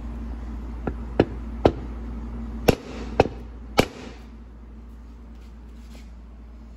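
Six sharp hammer taps on a punch, peening the edge of a freshly installed pump bushing into two slots in an E4OD/4R100 transmission pump to lock it in place. The taps come unevenly over about three seconds, then stop.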